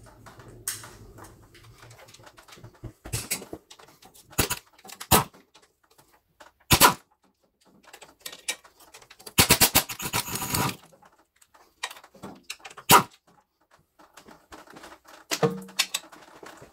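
Hand ratchet clicking as automatic transmission oil pan bolts are loosened: separate sharp clicks, then a quick run of clicks about ten seconds in, and a dull knock near the end.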